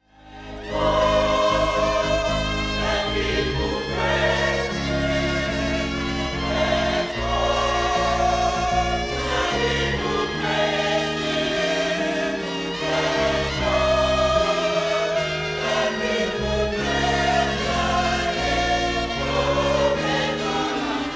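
Gospel choir singing sustained chords over held bass and keyboard accompaniment, fading in at the start.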